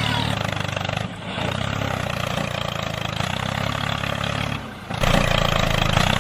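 A tractor engine running steadily, with a low even hum and a rough hiss above it, briefly dipping about a second in and again near the five-second mark.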